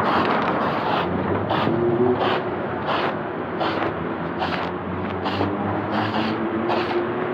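A small single-cylinder motorcycle engine running steadily, with a regular short scraping tick about every two-thirds of a second.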